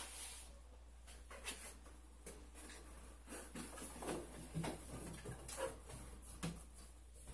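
Packing a chest freezer by hand: irregular plastic-bag rustling and soft knocks as items are set inside, with a couple of louder bumps in the second half, over a steady low hum.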